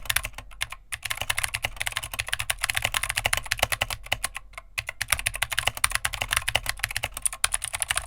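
Mechanical keyboard typing, a fast, uneven run of crisp key clicks with brief pauses, picked up by a small-diaphragm condenser microphone about 12 inches above the keys.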